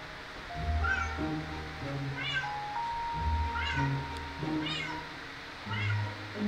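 Cat meowing: five short rising-and-falling meows a little over a second apart, over background music.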